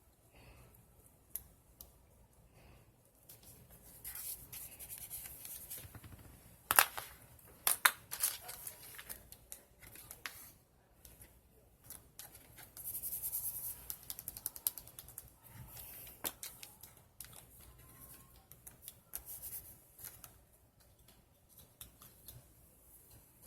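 Scissors cutting paper and paper being handled at a crafting desk. There are two longer stretches of cutting and rustling, about four seconds in and about twelve seconds in, and a few sharp clicks or taps around seven to eight seconds.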